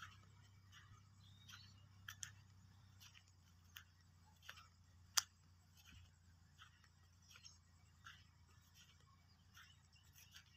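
Near silence broken by faint, irregular clicks and ticks, with one sharper click about five seconds in.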